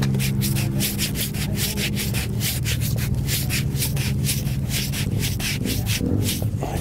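A bare hand rubbing quickly back and forth over a motorcycle's front tire tread, an even scratchy stroking at about five strokes a second that stops near the end. A steady low engine hum runs underneath.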